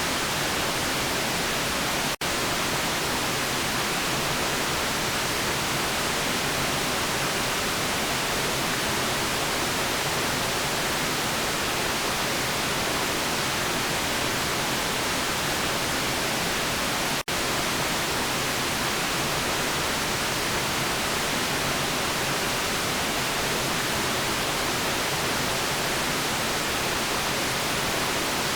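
Steady white noise, an even hiss across the whole range, broken by two momentary dropouts, about two seconds in and again some fifteen seconds later.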